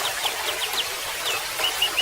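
Golden-bellied gerygone singing: a quick run of about five thin, high, down-slurred notes, a single falling note, then a string of short notes starting near the end. Under it runs the steady trickle of running water.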